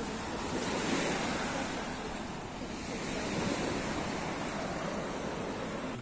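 Steady rushing noise of wind and Black Sea surf, with no distinct events.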